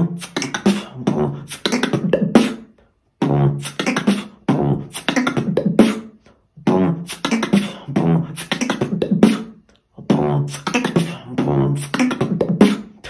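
Solo beatboxing: sharp mouth-percussion strikes layered over a low pitched bass tone. It comes in four phrases of about three seconds each, with short breaks between them.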